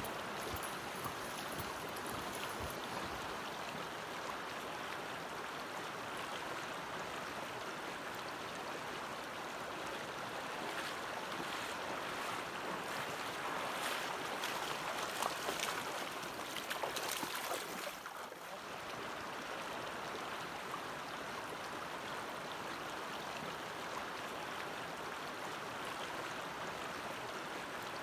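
Steady rushing of a shallow, rocky stream. Around the middle it is joined by louder splashing, the footsteps of someone wading through the water.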